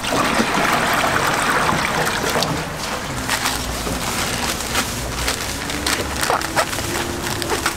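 Water poured from a container into an empty stainless-steel tray, splashing on the metal for about two and a half seconds. From about three seconds in, scissors snip open plastic packets with a run of sharp clicks and crinkles.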